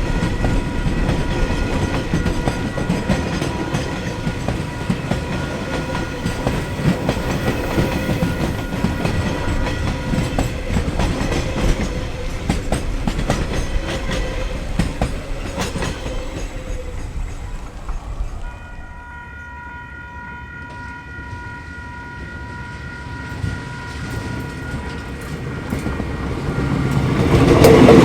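Freight wagons rolling past on the track, wheels clattering over the rail joints. About two-thirds of the way in the rolling dies down to a quieter stretch with a steady high tone, then swells loud again near the end as more train comes by.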